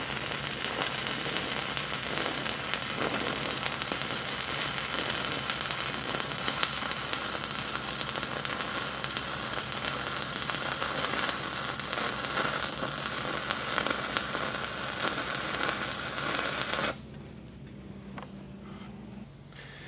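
Stick-welding arc crackling steadily as an 8010 electrode runs a hot pass on steel pipe; the arc breaks off about 17 seconds in.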